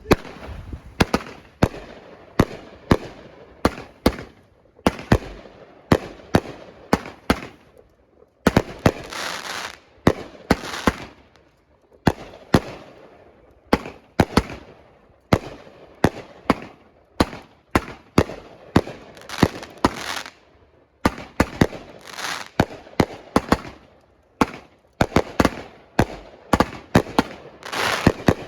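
Consumer fireworks going off: a long run of sharp bangs, about two a second, with hissing crackle after many of them and a few short breaks in the firing.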